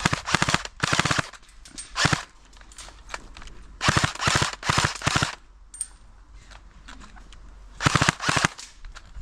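Airsoft guns firing in rapid full-auto bursts, about five bursts with short pauses between, the longest lasting over a second about four seconds in.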